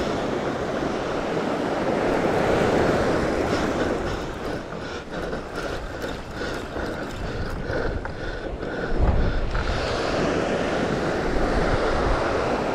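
Surf washing onto a sandy beach with wind buffeting the microphone, the waves swelling twice. A run of short ticks comes in the middle.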